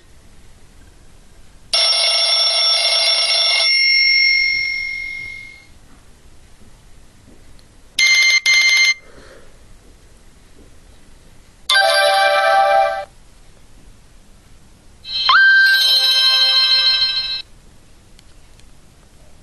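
Nokia 6124 classic mobile phone playing four short electronic tones in turn through its loudspeaker. First comes a chime that rings on and fades over a couple of seconds, then a quick double beep, then a brief melodic tone, and last a two-second tone that opens with a rising sweep.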